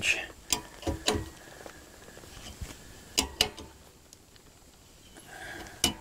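Adjustable wrench clicking against a brass pipe fitting while a well-pump pressure switch is tightened onto it: a handful of sharp metallic clicks at uneven intervals, the loudest near the end.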